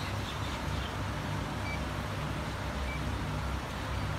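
Steady low background rumble, with a couple of faint short high beeps in the middle.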